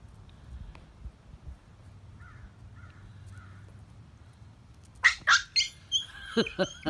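Faint background with a few soft chirps, then from about five seconds in a quick run of short, loud, high-pitched animal calls.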